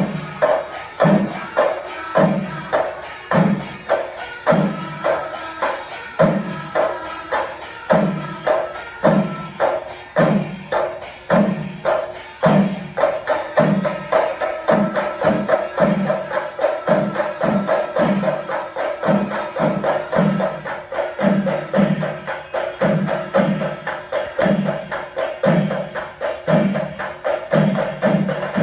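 A Kerala chenda melam: chenda drums beaten in a steady repeating rhythm, with hand cymbals (elathalam) ringing over the strokes. The beat quickens in the second half.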